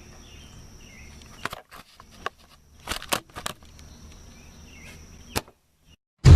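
Quiet background with a faint steady high tone and a few faint chirps, broken by several sharp clicks or snaps: one a second and a half in, a cluster around three seconds in, and a last one near the end.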